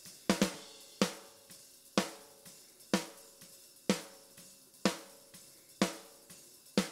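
Raw, unprocessed multitrack snare drum recording played back, the snare top and bottom microphone tracks together: a backbeat hit about once a second, each strike ringing out, with faint kit bleed between hits.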